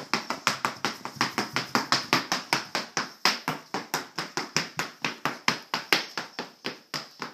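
A toddler's sparkly plastic dress-up high heels clacking on a hardwood floor in quick, even steps, about five clacks a second.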